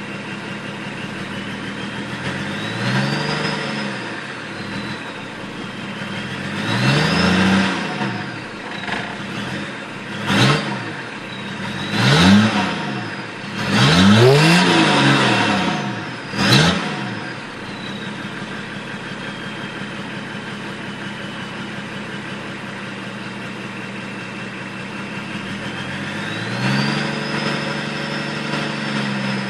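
BMW M21 straight-six diesel with a turbocharger idling and being revved several times, the turbo whistling high and rising and falling with each rev. The revs come in quick blips through the middle, then a longer, slower rise near the end.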